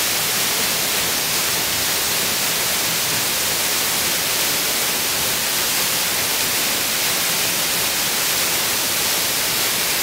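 Waterfall pouring from a sandstone overhang and splashing onto rocks and a shallow pool: a steady, even hiss that does not change.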